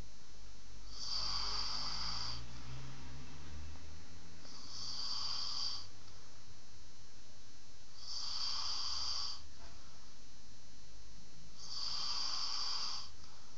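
A sleeper snoring: four snoring breaths, each a little over a second long, coming evenly about every three and a half seconds.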